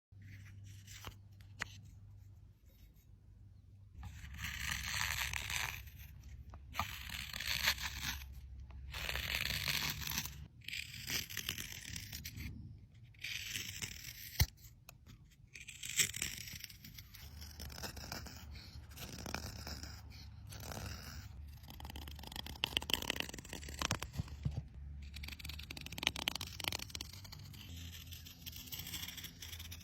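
Wood being worked by hand: a series of rasping, scraping strokes a second or two long, with a few sharp knocks between them.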